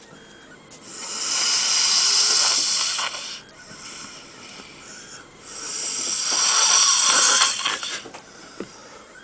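A man snoring: two long, loud snores about five seconds apart, each lasting about two and a half seconds, with quieter breathing between them.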